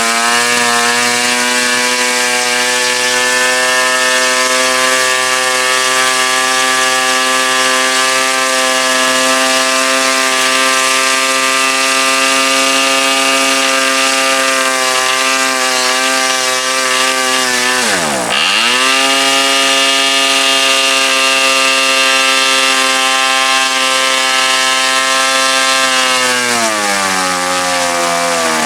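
Progress AeroWorks PAW .29 model diesel engine running at high speed with its propeller, a steady high-pitched buzz. About two-thirds of the way through, the pitch dips sharply for a moment and recovers, and near the end it falls to a lower, slower speed. The owner thinks it may still be running a bit rich.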